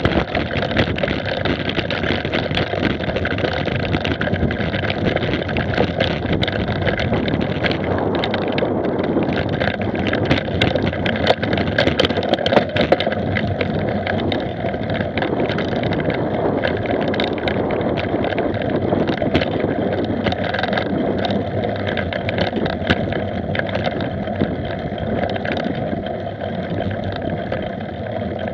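Mountain bike ridden fast over a rough forest dirt trail, heard from a camera on the bike or rider: a steady rush of wind and tyre noise with constant small rattles and knocks from the bike over the bumps.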